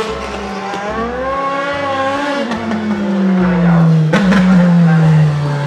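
BMW M4 DTM race car's V8 engine at speed on the track. Its note rises briefly, then the revs fall steadily over the last three seconds, with a sharp crack a little past the four-second mark.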